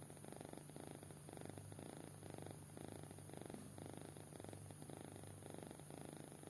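Sleeping kitten purring, a faint rapid rattle that swells and fades in even phases with its breathing.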